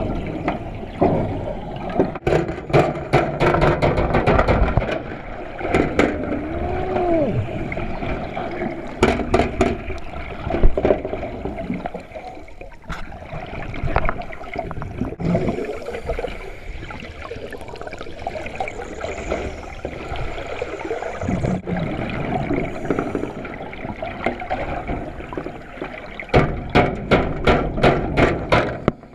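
Water churning and bubbling around an underwater camera, muffled through the housing, with several bursts of rapid crackling clicks, the longest near the end. About a third of the way in there is one sharp knock.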